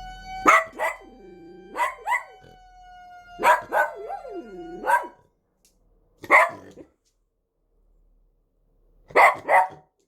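Dog barking repeatedly, with a few drawn-out whining howls, over the steady electronic tone of a fire-inspection siren. The siren tone stops about five seconds in; the dog barks once more a second later and twice near the end.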